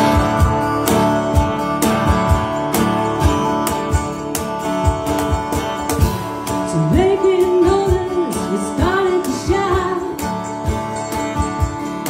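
Live band playing with mandolin, electric bass, keyboard and cajon keeping a steady beat; a woman begins singing about seven seconds in.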